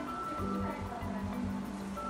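Background music: held notes over a soft, low, quick beat.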